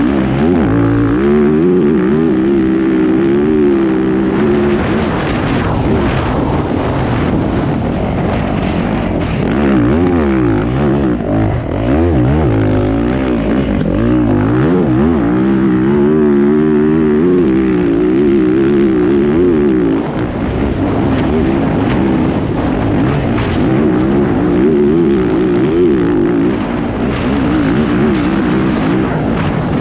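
Fantic XEF 450 four-stroke single-cylinder enduro motorcycle engine heard from a camera mounted on the bike, ridden hard, its revs climbing and dropping again and again.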